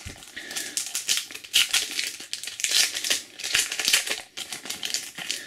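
A Panini Adrenalyn XL trading-card pack's wrapper crinkling and crackling irregularly as it is handled and opened by hand.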